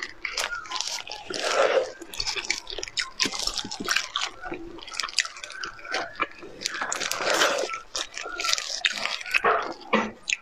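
Close-miked sounds of soft stewed meat being torn apart by plastic-gloved hands and chewed: a run of wet squishes, clicks and mouth smacks.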